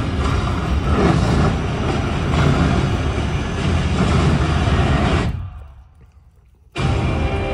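Film-trailer soundtrack through cinema speakers: a dense rumble of a speeding truck engine and explosions. It fades to almost nothing about five seconds in, then loud sound cuts back in abruptly a second and a half later.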